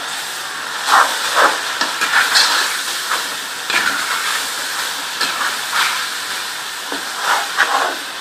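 Chicken pieces frying with ginger-garlic paste and ground spices in hot oil, sizzling with a steady hiss. A wooden spatula stirs them round the pan in irregular scraping strokes.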